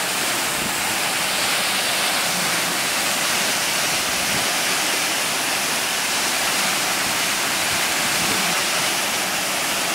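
Waterfall's rushing water, a steady even rush.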